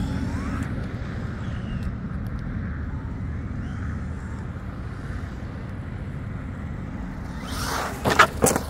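Traxxas Ford F-150 Raptor R RC truck driving: a rising electric motor whine at the start, then a steady low rumble as it runs. A quick cluster of loud knocks comes near the end.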